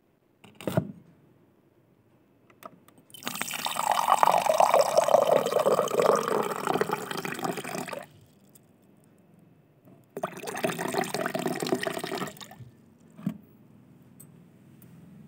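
Running water in two spells, a longer one of about five seconds and a shorter one of about two, after a sharp click near the start.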